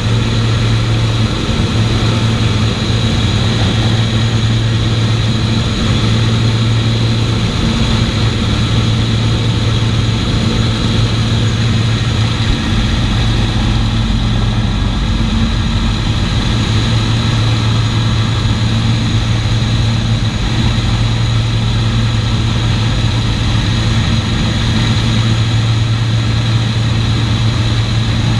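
Four Merlin V12 piston engines and propellers of an Avro Lancaster bomber running steadily in level flight, a loud, even low drone heard from inside the mid-upper turret.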